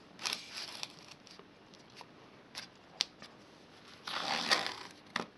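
Scattered light taps and rustles of a spirit level and cardboard being handled, then, about four seconds in, a pencil scratching a line along the level's edge on the cardboard for about a second.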